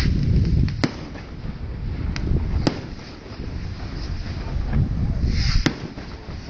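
Fireworks going off: four sharp cracks spread over a few seconds, over a steady low rumble with wind noise on the microphone.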